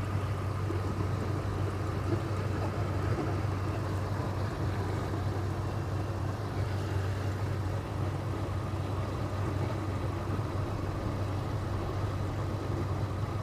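Ford F-150's 5.4-litre Triton V8 idling steadily with one ignition coil unplugged, so one cylinder is misfiring.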